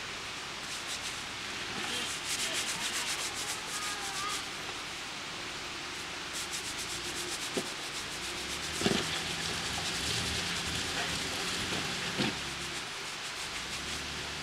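Jeep Wrangler JK Unlimited crawling up a muddy rock ledge: tyres grinding and scraping over rock and mud with rapid crackling, and the engine's low drone rising from about eight seconds in. Several knocks from the rocks, the loudest about nine seconds in.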